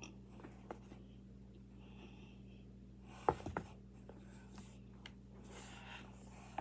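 Soft rubbing and scratching from handling and eating baby powder, with a few light clicks and a short cluster of louder crackles about three seconds in, over a steady low hum.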